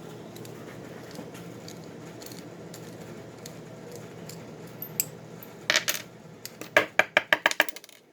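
A small metal part from a disassembled American 1100 padlock drops onto a hard surface and bounces. Its clinks come faster and faster as it settles, after a click and a brief metallic rattle of the lock being handled. A steady low hum runs underneath.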